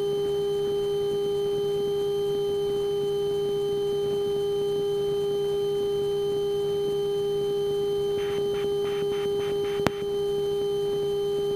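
Steady drone of a Piper Lance's engine and propeller heard through the cockpit intercom, an unchanging hum-like tone. About eight seconds in there is a brief run of faint ticks, followed by a single sharp click.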